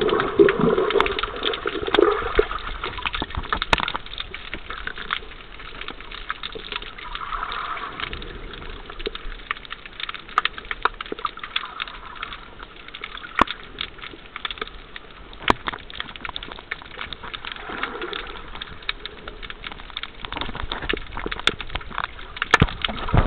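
Underwater water noise heard with the microphone below the surface: a muffled rushing and gurgling, loudest in the first few seconds and again near the end, with scattered sharp clicks throughout.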